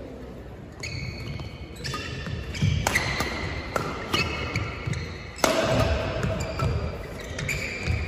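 Badminton rally: sharp cracks of rackets striking the shuttlecock roughly once a second, the loudest about five seconds in, with short high squeaks of shoes on the court mat between shots.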